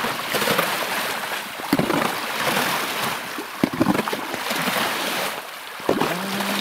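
Shovel scraping and scooping wet slush and water on river ice, in irregular strokes with a few sharper knocks.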